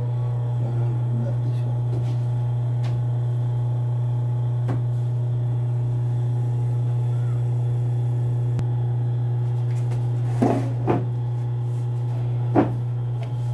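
Steady electric motor hum from an industrial sewing machine left running between stitches. Fabric is handled and rustled briefly a few times near the end.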